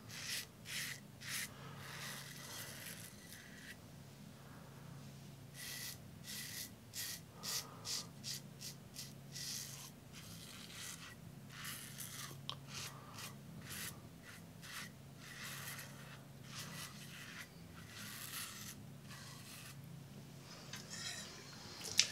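Safety razor strokes through lathered beard stubble: a series of short scratchy rasps, about one or two a second, with brief pauses between strokes.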